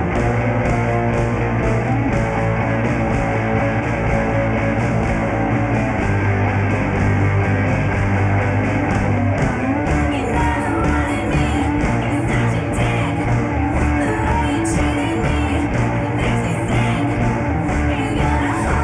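Rock music with electric guitar played by a full band; a voice comes in singing about halfway through.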